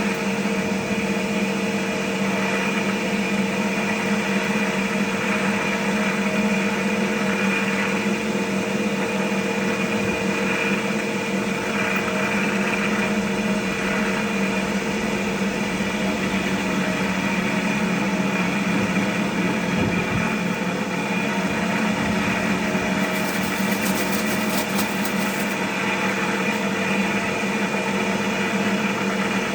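Cotton candy machine running, its motor spinning the heated spinner head at a steady speed with a constant hum while it throws out sugar floss.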